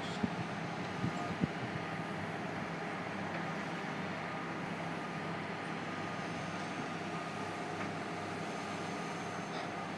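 Steady engine hum of heavy demolition machinery, with a few short knocks in the first second and a half.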